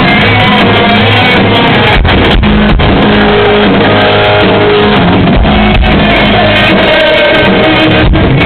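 Rock band playing loud and live: electric guitar, bass and drums.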